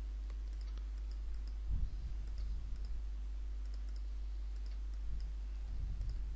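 Computer mouse clicking now and then, faint light ticks, as the clone stamp tool is used. Under it runs a steady low hum, with a couple of dull low thumps, one about two seconds in and one near the end.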